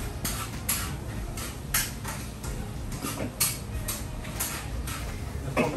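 Clatter of utensils and containers from a takeaway kitchen counter: a few sharp clicks and knocks at irregular intervals, over a steady low hum.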